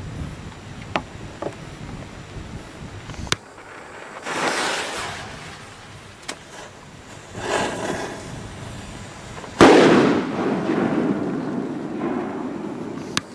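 Large firecrackers going off: a few sharp cracks, then one big bang about three-quarters of the way through that echoes and rumbles away for a couple of seconds, and another crack near the end.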